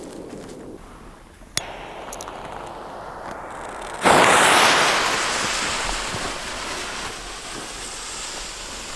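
A single sharp click, then about four seconds in a loud hiss starts suddenly as a butane jet-torch lighter lights the fuse of a Viper 2 firecracker. The hiss of the burning fuse fades over the next few seconds.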